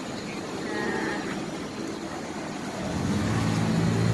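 Open-air background noise, then about three seconds in a motor vehicle's engine comes in as a steady low hum and grows louder.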